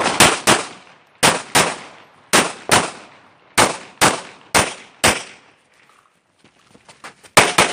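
Pistol shots fired in quick pairs and short strings, about a dozen in the first five seconds, then a pause of about two seconds and a fast string of three shots near the end.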